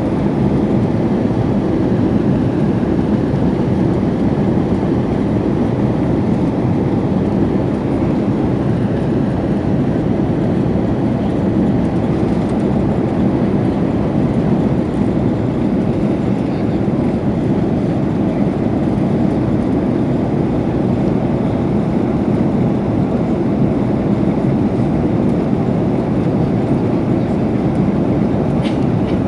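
Steady drone of an Airbus A330-300's jet engines and airflow, heard inside the passenger cabin.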